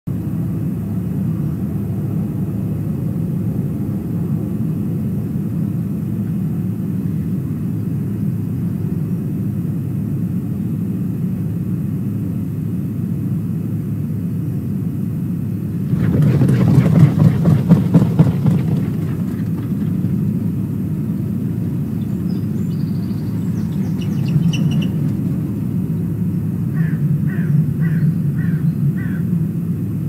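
Steady low rumble, then about sixteen seconds in a loud flurry of an osprey's wingbeats lasting two or three seconds as it takes off from the nest. Near the end, a short run of about five quick bird calls.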